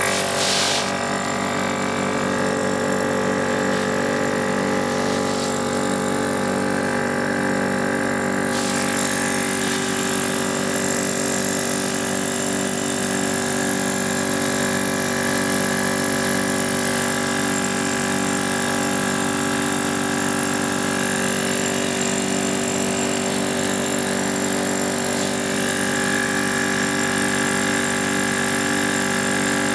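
EPAuto 12 V portable tire inflator running steadily under load as it pumps up a low car tire.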